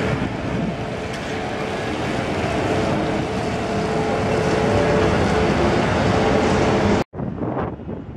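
Electric trolleybus driving past on a city street: a faint steady hum over tyre and road noise, getting somewhat louder over several seconds. It cuts off suddenly near the end and gives way to quieter street traffic.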